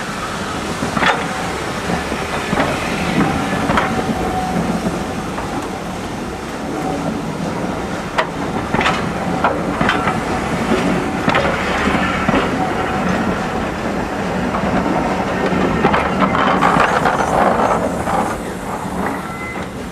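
Passenger coaches of a steam-hauled train rolling past close by, a steady rumble with wheels clicking over the rail joints at irregular intervals.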